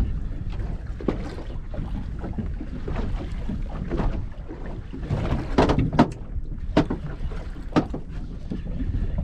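Wind rumbling on the microphone and water against the hull of a small boat, with a few sharp knocks in the second half.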